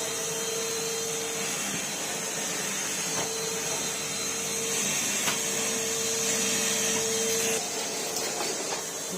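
Numatic Henry vacuum cleaner running steadily, with a humming tone that comes and goes. The sound drops a little about three quarters of the way through.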